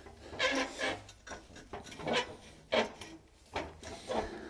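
A series of short rubbing and scraping handling sounds, about six in four seconds, each brief and separate.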